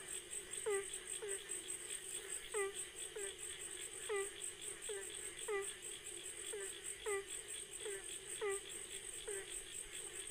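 Night chorus at the water's edge: insects trill steadily and high, while a short call that drops quickly in pitch repeats over and over, a little more than once a second.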